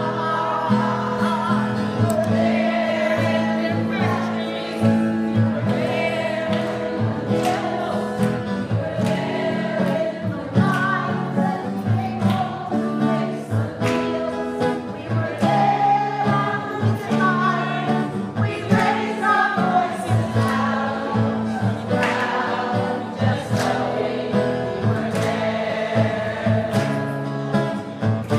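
Folk song: voices singing together over strummed acoustic guitar, with a steady strummed rhythm throughout.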